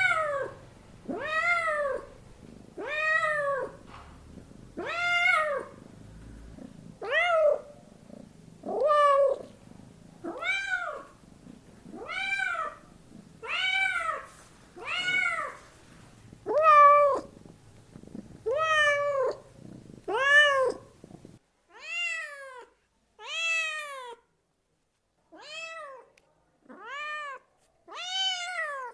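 A cat meowing over and over, about one meow a second, each call rising then falling in pitch. About 21 s in the low background hum drops out and the meows continue with slightly longer gaps.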